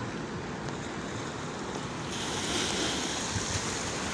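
Sea surf washing onto a sandy beach: a steady rush of waves that swells with a louder breaking wave about two seconds in.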